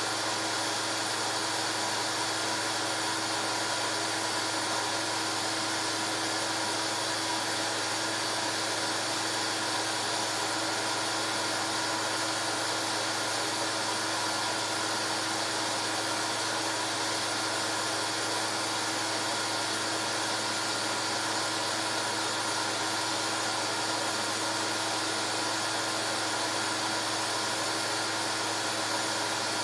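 Film projector running: a steady motor and fan whir with an even hum under it.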